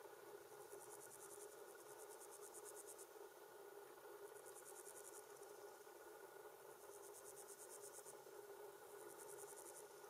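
Faint steady drone of a distant Claas Lexion 670 combine harvester at work. Over it an insect chirps in four trains of rapid high-pitched pulses, each lasting about one to two seconds.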